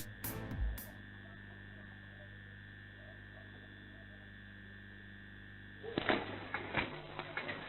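Steady electrical hum with a thin high whine. About six seconds in, the whine stops and irregular rattling and clicking breaks in.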